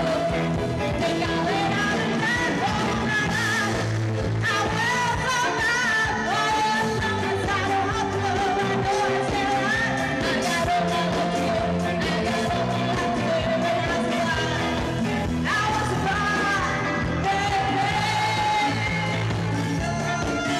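A woman singing lead vocals into a microphone with a live band playing behind her, her voice in long, bending high lines over a steady beat.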